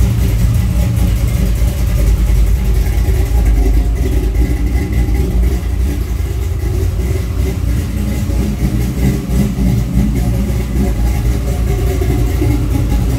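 Car engine idling steadily, turning a new serpentine belt and a replaced power steering pump, with no distinct popping from the pump pulley: the owner puts the earlier popping down to the new, tight belt needing to stretch.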